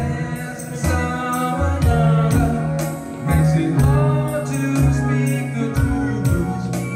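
Live band playing a song: sung vocals over a bass line with steady percussion hits.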